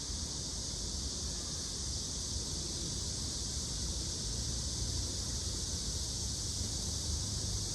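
Steady outdoor ambience: wind rumbling on the microphone under a constant high-pitched hiss, with no distinct events.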